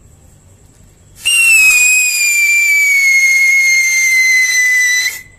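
Cock brand siren torch, a hand-held pencil firework, whistling over the hiss of its spark spray. The loud, shrill siren whistle starts about a second in, slides slowly down in pitch for about four seconds, then cuts off suddenly.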